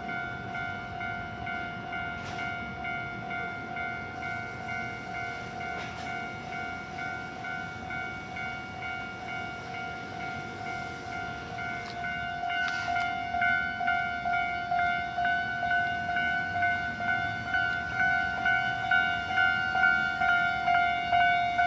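Japanese level-crossing warning alarm ringing its steady, rhythmic electronic bell tone. It grows louder about halfway through, where a higher tone joins in.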